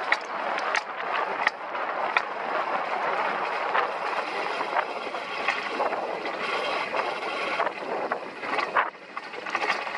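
Alpine coaster sled running fast down its tubular steel rails: a steady rush and rumble of the wheels mixed with wind on the microphone, with irregular sharp clacks along the track.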